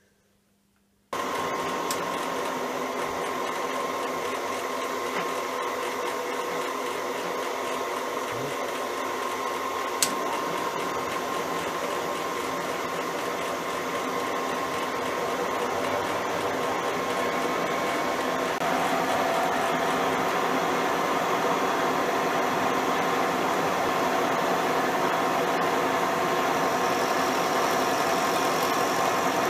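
Schaublin SV52 milling machine switched on about a second in, its spindle running idle with a quite modest, steady whine and hum. A single sharp click sounds about a third of the way in, and about two-thirds through the whine drops a little in pitch and the running gets slightly louder.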